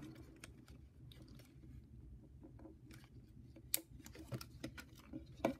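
Faint scattered clicks and taps of hands handling an opened plastic pocket radio, its circuit board and wiring, with a few sharper clicks in the second half.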